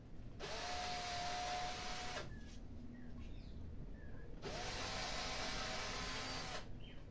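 Cordless drill running in two bursts of about two seconds each, boring a hole through the trunk of a Japanese maple bonsai for a thread graft. Each run rises briefly in pitch as it spins up and then holds a steady whine.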